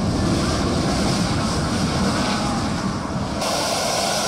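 Twin-engine jet airliner's engines running as it rolls along the runway after landing and taxis. A steady noise, heavy in the low end, that changes abruptly about three and a half seconds in to a brighter hiss.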